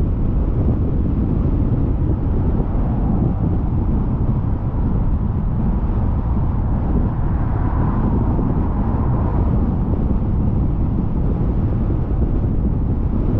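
Car driving at a steady speed: a continuous low rumble of road and wind noise.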